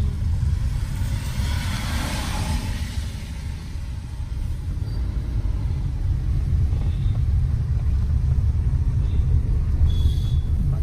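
Inside a moving car on a wet road: a steady low rumble of the engine and tyres, with a hiss that swells and fades about two seconds in.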